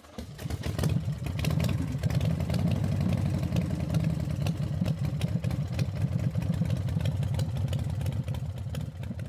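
A motor running steadily with a fast, even clatter, building up over the first second.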